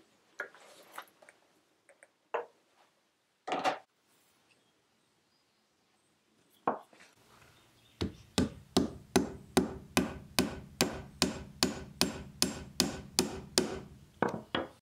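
A few loose clacks of small wooden wedges being set down and handled, then a hammer tapping a wooden wedge in at the foot of a pine siding board, wedging it in place: a steady run of sharp blows, about three a second, for the last six seconds or so.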